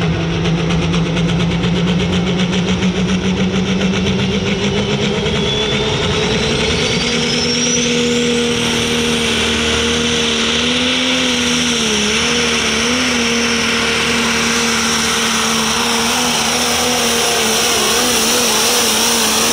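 Pro Stock pulling tractor's turbocharged diesel engine running flat out under load during a pull. Its pitch climbs over the first several seconds and then holds, wavering briefly about midway, with a high whine rising alongside it early on.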